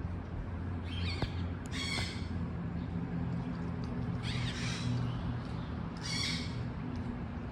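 Yellow-collared macaw squawking: about four harsh calls a second or two apart, the third one longer, over a steady low hum.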